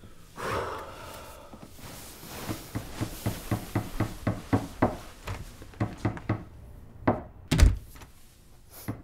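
Rapid knocking and hammering, about four blows a second, from work on the crawl space overhead, with one heavy thud near the end. A short creaking sound comes just before the knocking starts.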